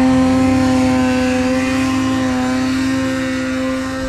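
Snowmobile engine held at high, steady revs as the sled is ridden out of deep snow after being stuck.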